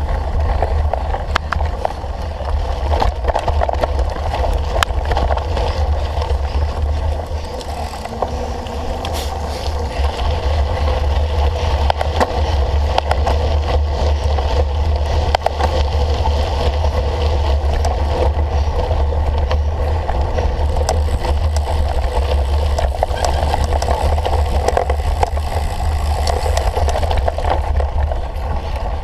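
Wind buffeting the microphone with a steady low rumble, over the rattle and tyre noise of a cyclocross bike ridden over rough ground, with scattered sharp clicks and knocks.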